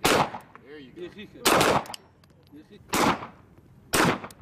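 Beretta M9 9 mm pistol firing four single shots, spaced about one to one and a half seconds apart, each a sharp crack with a brief echo trailing off.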